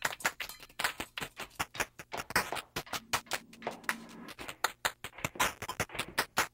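A rapid, irregular run of sharp clicks or taps, several a second.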